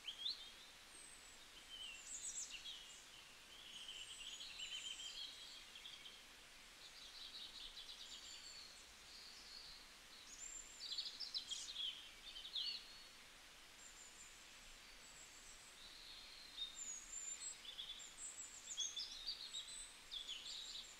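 Faint birdsong ambience: several birds chirping and trilling in scattered clusters, a background nature track.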